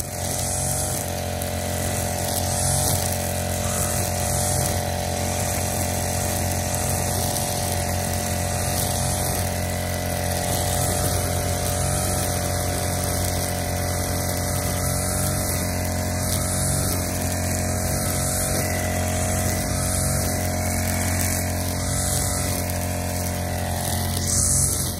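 Backpack brush cutter's small engine running steadily at working speed while the cutting head is swept through tall grass, the swish of cut grass rising and falling with each sweep about every second or two.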